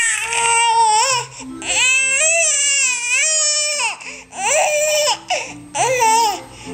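Baby's new small 'growl' noise: four loud, pitched calls that rise and fall, the longest about two seconds in the middle, the others short.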